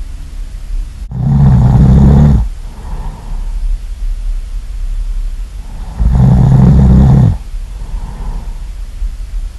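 A person snoring loudly: two long, low, rattling snores about five seconds apart, each followed by a softer breath.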